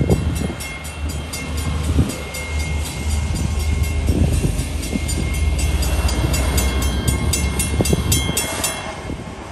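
Railroad crossing bell dinging rapidly and evenly over the low rumble of an approaching RJ Corman diesel locomotive. The bell stops shortly before the end.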